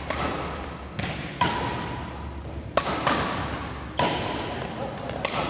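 Badminton rackets striking a shuttlecock in a fast doubles rally, a sharp hit about every second, each echoing off the walls of the hall.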